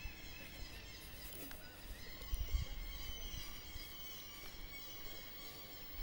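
Eerie, drawn-out high-pitched tones of unknown origin, several layered at once and wavering slowly in pitch, over a faint low rumble of wind on the microphone.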